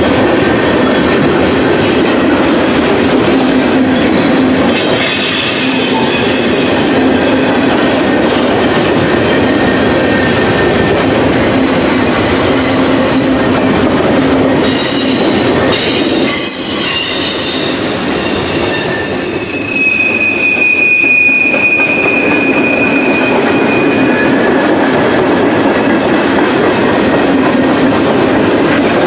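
Freight train of tank cars, covered hoppers, boxcars and gondolas rolling past close by, its wheels rumbling and clattering steadily over the rails. High wheel squeals come several times, the longest a steady squeal lasting a few seconds a little past the middle.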